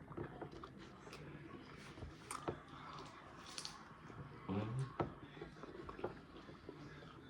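Quiet eating sounds: chewing, with scattered small clicks and taps, and a brief low murmur about four and a half seconds in.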